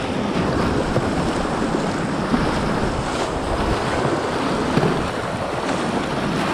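Colorado River whitewater rushing through a rapid, with waves splashing over the bow of a packraft. It is a steady, loud rush of water.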